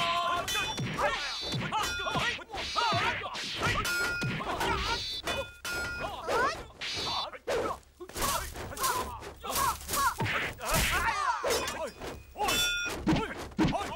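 Kung fu fight sound effects: a rapid run of punch and staff-strike whacks and thuds, mixed with fighters' shouts and short metallic rings.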